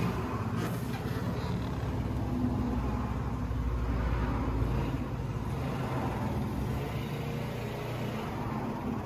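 Honda CBR125R's single-cylinder four-stroke engine idling steadily.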